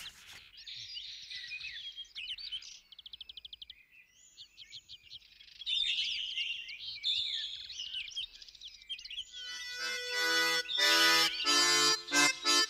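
Birdsong: quick chirps, sliding whistles and a short rapid trill. About nine and a half seconds in, a reed-instrument tune starts and takes over.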